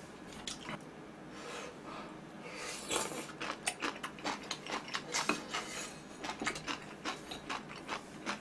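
Chopsticks clicking and scraping on a large griddle pan as leftover noodle bits are picked up, mixed with chewing and mouth sounds. The clicks come sparsely at first, then quicker from about two and a half seconds in, with a brief hiss near three seconds.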